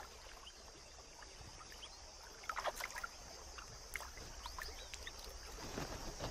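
Faint splashing and sloshing of shallow water as elephants wade and drink at a waterhole, with a few small clicks and short chirps in the middle.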